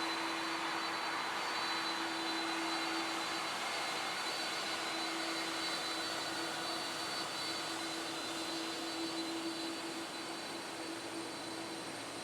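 Airbus A330-300 jet engines running at taxi idle: a steady hiss with a low hum and a thin high whine, getting slightly quieter near the end.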